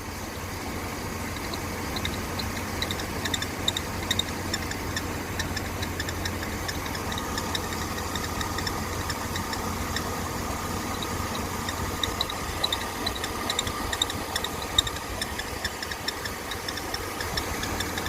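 Mercedes-Benz C-Class W204 engine idling with a rapid, rhythmic high-pitched chirping squeak from the accessory drive belt, coming and going in clusters. The owner suspects a worn upper idler pulley.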